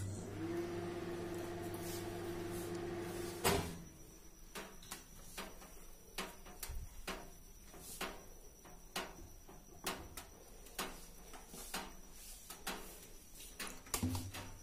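Microwave oven running after being started for five minutes, a steady hum, which stops about three and a half seconds in with a sharp click. Faint scattered clicks and knocks follow.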